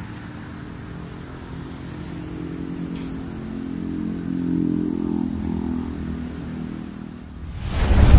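A motor vehicle's engine passing close by, growing louder to about halfway and then fading away. Near the end a loud rising whoosh from an intro sound effect cuts in.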